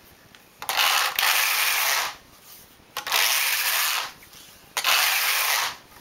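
Domestic flatbed knitting machine's carriage pushed across the needle bed three times, back and forth, each pass a noisy slide of a little over a second with short pauses between: knitting rows of yarn.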